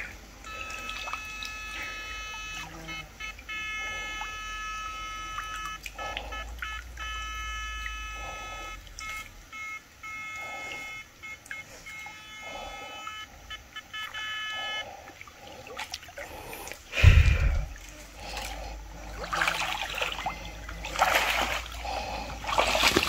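A person wading through a shallow muddy stream, with soft swishes of water. About three quarters of the way through there is a loud thump, followed by heavier splashing near the end. For the first 15 s a steady set of high tones rings in the background, with short breaks.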